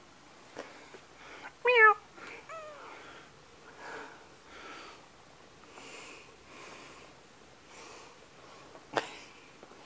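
A domestic cat meows once loudly with a wavering pitch, then gives a shorter, softer falling meow. A sharp click comes near the end.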